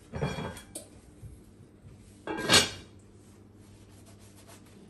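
Lid being set onto a white enamelled Dutch oven: one short scraping clatter about halfway through, with lighter handling knocks and rustles around it.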